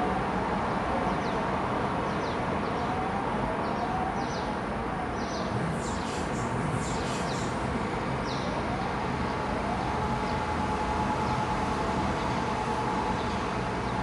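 Distant electronic siren wailing, its pitch rising and falling slowly about every four seconds, then holding one steady tone from about nine seconds in. Birds chirp briefly in the middle, over a steady hum of town background noise.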